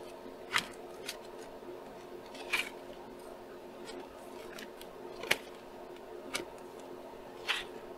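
Paper wall-calendar pages being turned and handled: about six short, sharp paper snaps, spaced a second or more apart, over a faint steady hum.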